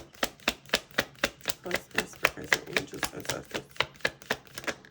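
Tarot cards being shuffled by hand, the deck clicking in a quick even rhythm of about four strokes a second.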